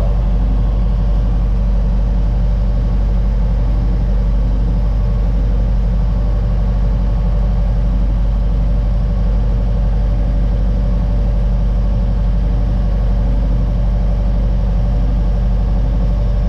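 Case 1390 tractor's diesel engine running at steady revs, heard from inside the cab, driving an Alfa Laval slurry pump while a slurry tanker fills.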